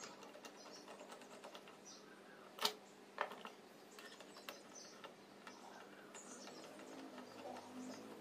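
Hand screwdriver driving a small screw into a scissor jack's metal frame: faint scattered clicks and ticks of metal on metal, with two sharper clicks about two and a half and three seconds in.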